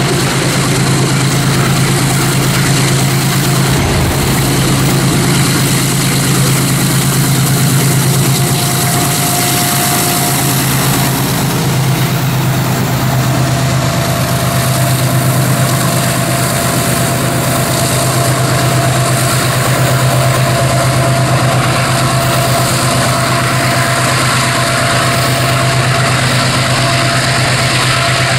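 GE diesel-electric freight locomotive's engine running steadily at idle: a loud, even, deep drone, with a thin steady whine above it through the second half.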